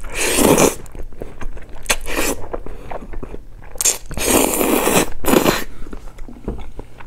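Spaghetti in tomato sauce slurped loudly off chopsticks, with a long slurp at the start and another run of slurps about four seconds in, and chewing between.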